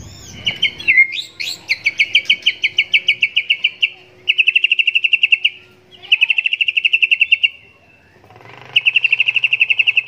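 White-rumped shama (Nias murai batu) in a cage singing hard, as a bird in full song does: a rising call, then four runs of fast, evenly repeated notes, about ten a second, separated by short pauses.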